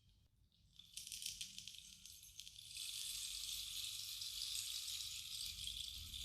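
Bamboo rainstick: the patter of falling pellets dies away almost to silence, then starts again about a second in and builds to a steady, rain-like shower by about three seconds.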